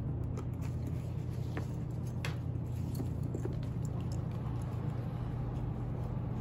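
A few faint clicks and light rattles from a shoulder strap's metal swivel clip being hooked onto a zippered card case's ring and handled, over a steady low hum.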